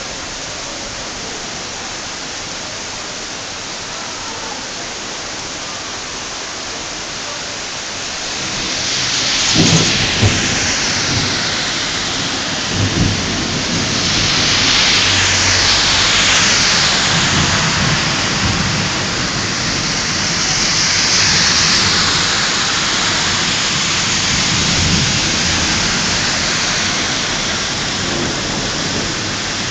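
Heavy thunderstorm rain pouring steadily, growing heavier about eight seconds in. A sharp thunderclap comes about ten seconds in and another a few seconds later, followed by thunder rumbling on and off.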